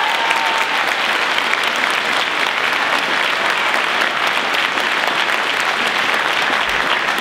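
Audience applauding steadily, a dense, even clapping that holds at one level throughout.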